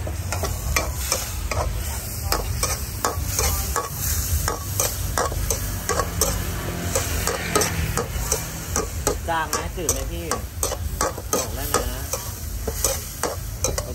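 Metal spatula scraping and clanking against a steel wok in quick strokes, about three a second, while squid and holy basil sizzle in hot oil.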